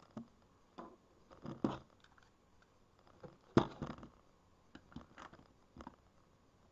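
Handling noise of an airsoft 1911 pistol being moved and set down on a table: scattered clicks and knocks, the loudest a cluster about three and a half seconds in.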